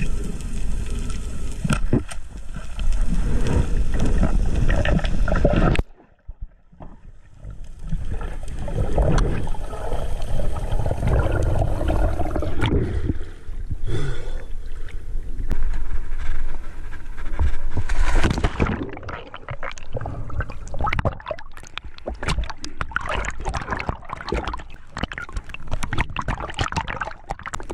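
Water sloshing and gurgling around an action camera as it moves underwater and at the surface. It dips sharply for a moment about six seconds in, and in the second half a dense crackle of clicks runs through it.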